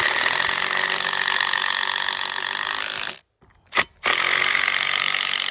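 Power saw cutting through wood in two steady runs, cutting off about three seconds in and resuming a second later, with a sharp knock in the gap.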